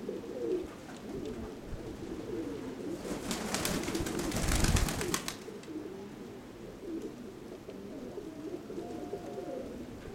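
Domestic Nikolaev pigeons cooing, one wavering call after another. About three to five seconds in there is a louder burst of rustling and rumbling.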